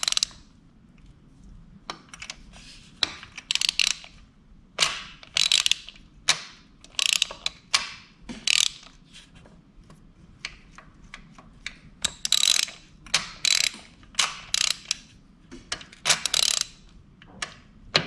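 Gear-shift mechanism of a 1982 Honda CB900C engine being worked by hand through its gears, clicking and clacking into each gear. The clicks come in irregular runs, roughly one every half second to second.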